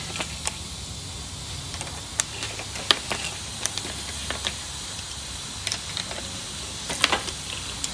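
Scattered light metallic clicks and taps at irregular intervals, from a wing nut being worked back and forth on the freshly lubricated, corroded threads of an aluminum height stick, over a steady low hum.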